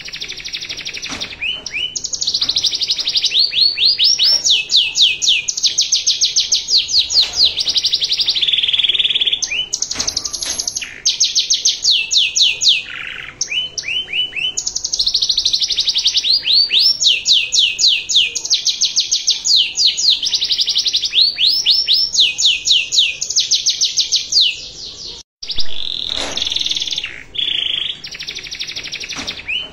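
Domestic canary singing a long, elaborate song of fast trills and rolls of rapid repeated high notes, phrase after phrase with brief pauses between, breaking off for a moment near the end. It is a canary master song, the kind played to tutor other canaries.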